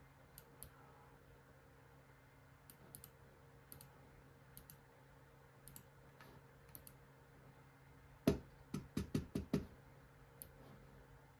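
Computer mouse and keyboard clicks: scattered single clicks, then a quick run of louder clicks about eight seconds in, over a faint steady hum.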